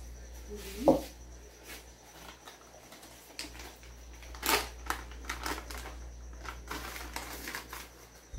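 A plastic measuring cup set down on a table with a sharp knock about a second in, then the crinkle and rustle of a plastic packet being handled and opened, with scattered small clicks and one louder crackle midway.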